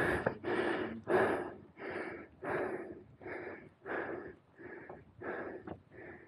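A man panting heavily, about two breaths a second in a steady rhythm, winded from climbing steep steps up a mountain trail.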